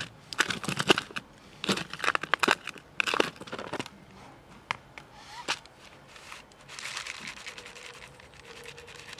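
Plastic crinkling and rustling close to the microphone, a quick run of crackles for about the first four seconds, then a couple of single clicks.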